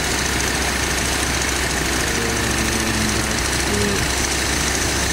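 Warmed-up car engine idling steadily at base idle.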